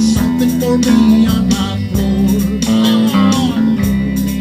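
Live band music: bass guitar, guitar and accordion playing a steady beat.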